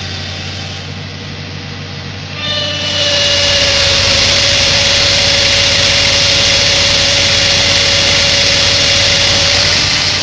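Olive tree trunk shaker at work: its engine runs steadily, then about two and a half seconds in the shaker head clamped to the trunk starts up, adding a loud rushing of shaken branches and leaves with a steady whine. Both hold until near the end, then die down.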